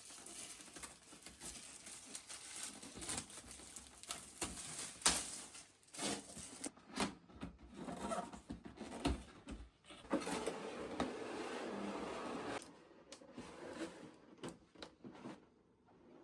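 Hands opening blind-box packaging close to the microphone: rustling, clicks and taps of cardboard and plastic wrapping, with a denser continuous rustle lasting a couple of seconds from about ten seconds in.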